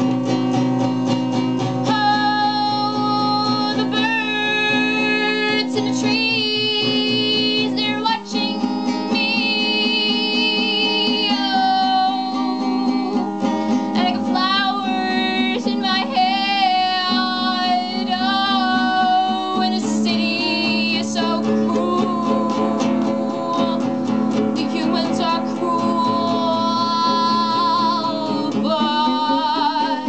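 A woman singing a folky song to her own acoustic guitar accompaniment, her held notes wavering with vibrato over steady strumming.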